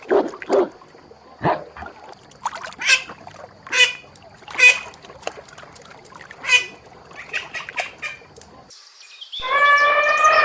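Birds calling: a series of short, sharp calls at irregular intervals. Near the end, after a brief break, a long, loud call begins and falls slightly in pitch.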